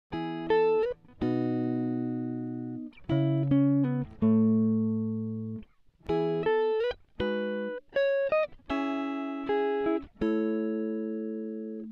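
Background music: a melody of single pitched notes, each struck sharply and left to ring and fade, with short gaps between phrases.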